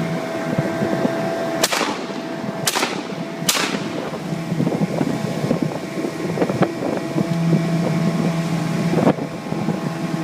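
Three 12-gauge shotgun blasts about a second apart, a couple of seconds in, over a 15 hp Mariner outboard motor running steadily.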